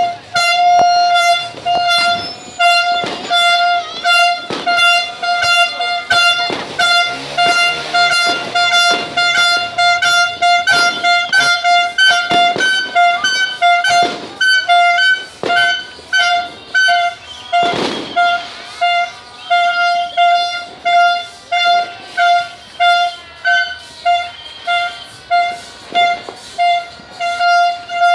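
A vehicle horn beeps over and over in a steady rhythm, about one and a half beeps a second, while firework bangs and cracks go off irregularly, with one big blast about two-thirds of the way through.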